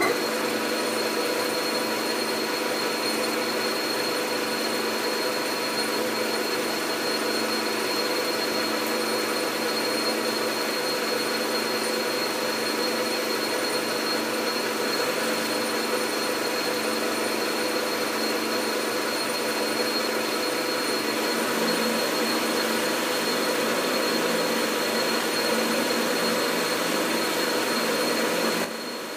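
Metal lathe running through a turning cut on a steel bar with an indexable carbide insert: a steady machine whine of fixed tones over a hiss of cutting noise. The level drops a little near the end.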